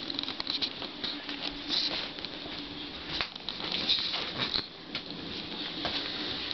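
Two-week-old puppies stirring and shuffling on bedding, with soft scattered clicks, rustles and a few brief faint squeaks.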